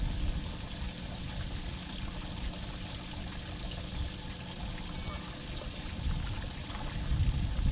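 Water lapping and trickling against the hull of a bass boat, over a steady low rumble that swells near the end.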